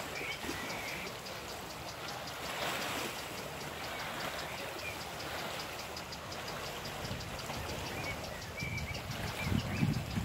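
Small waves lapping on a pebble shore, with a fast, even, high ticking in the background and a few faint chirps. Some low thumps come near the end.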